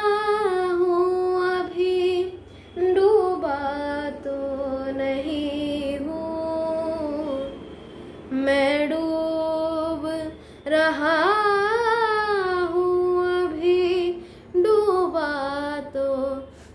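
A young singer's solo voice singing a Hindi-Urdu ghazal in long, held, wavering melismatic notes, with short breaths between phrases.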